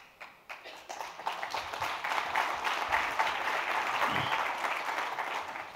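Audience applauding. The clapping swells over the first couple of seconds, holds, then dies away near the end.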